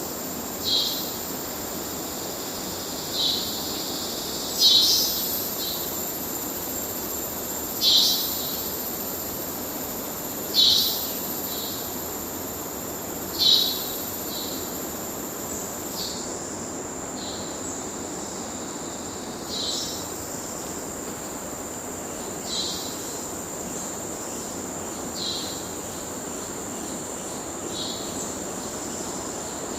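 Rainforest ambience: a steady hiss with a continuous high insect drone, and a short animal call repeated about every three seconds, louder through the first half and fainter in the second.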